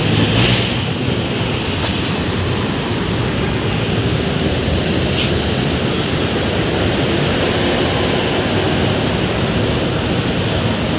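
Steady city road traffic noise heard from beneath an elevated roadway: a loud, even wash of sound with no single vehicle standing out.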